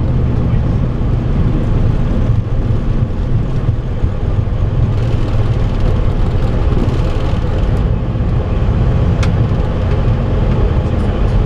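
Cockpit noise of a Boeing 737-400F rolling on the ground after landing: a steady low rumble of the aircraft, with a single sharp click about nine seconds in.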